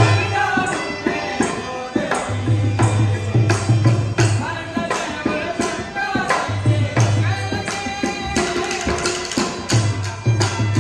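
Music with a steady beat: repeated heavy bass pulses, quick percussion strikes and a melody line over them.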